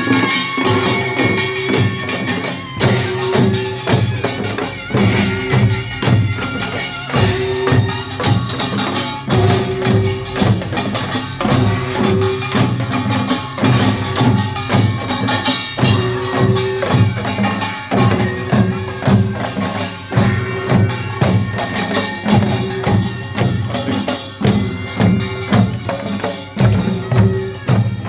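Korean pungmul farmers' band playing a fast, driving rhythm of many strikes on drums and small gongs, with some held pitched tones over the percussion.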